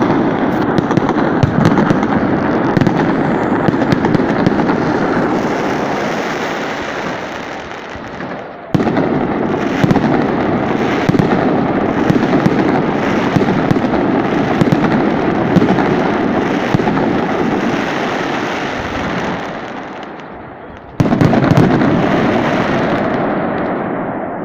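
Fireworks barrage: a dense, continuous run of bangs and crackles. It fades gradually, then comes back loud all at once, about 9 seconds in and again about 21 seconds in.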